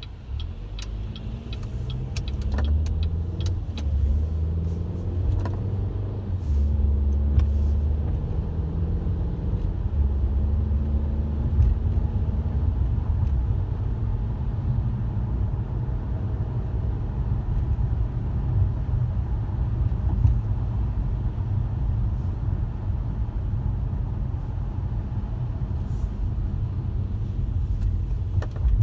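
A car being driven: a steady low engine and road rumble that builds over the first few seconds as the car gets moving. A few light clicks come near the start.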